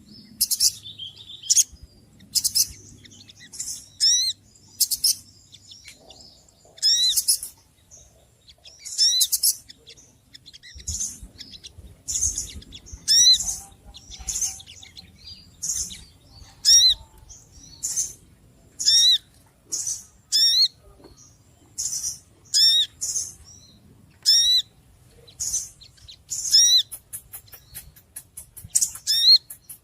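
Small birds chirping and calling noisily: short, high-pitched chirps and bursts, some with quick pitch sweeps, repeated about once or twice a second, breaking into a fast run of rapid notes near the end.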